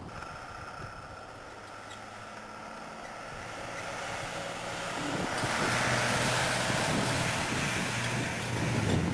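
A vehicle engine running steadily, growing louder from about three seconds in and staying loud.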